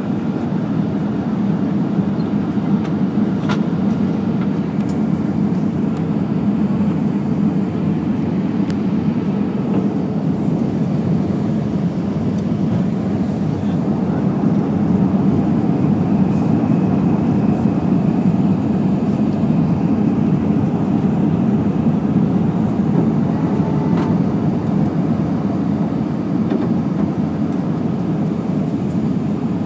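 Steady cabin noise of an airliner descending on approach: the low, even rumble of the engines and rushing air heard from a window seat, with a few faint clicks.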